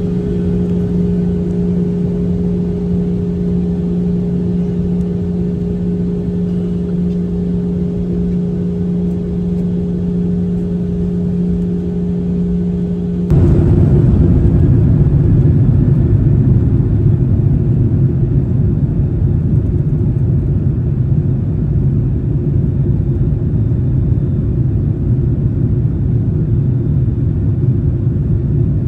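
Jet airliner engines heard from inside the cabin: a steady hum with two held tones while the plane taxis. About 13 seconds in, the sound jumps abruptly to a louder, deeper rumble of engines and wheels as the plane rolls along the runway for departure.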